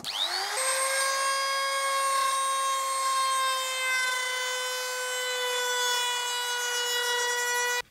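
Handheld trim router with a flush-trim bit, its whine rising as it spins up and then running as a steady high whine while it trims oak lipping flush with the board's edge. The sound cuts off suddenly near the end.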